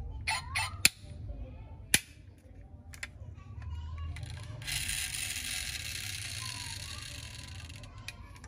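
Two sharp clicks about a second apart as the doors of a die-cast metal toy car are snapped shut. They are followed a couple of seconds later by a steady hiss lasting about three seconds, fading slowly.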